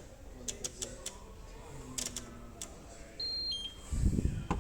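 A few sharp clicks, then a short two-note electronic beep, high then lower, about three seconds in, over faint shop background noise. A low rumbling handling noise comes near the end.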